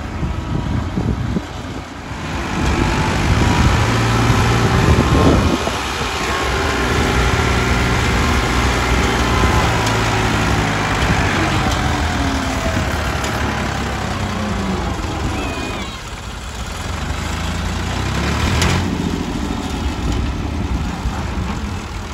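Ford 3610 tractor's three-cylinder diesel engine labouring as it pulls a heavily overloaded sugarcane trolley, its pitch rising and falling as it revs. It is loudest about three to five seconds in, eases off briefly near sixteen seconds, then picks up again.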